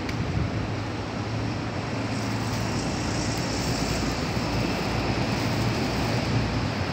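Steady rush of road traffic, a constant noise with a low engine hum underneath.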